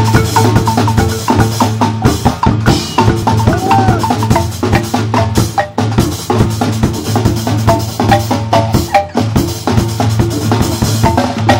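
An ensemble of several wooden-keyed marimbas with a drum kit playing a fast, upbeat piece: dense runs of short struck notes over a steady low bass line, driven by kick drum and snare.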